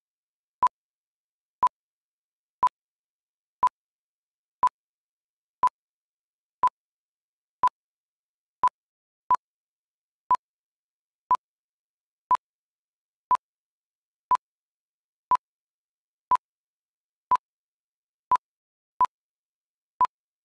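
Countdown timer sound effect: a short, sharp electronic tick once a second, with silence in between and a couple of extra ticks slipped in between the regular ones.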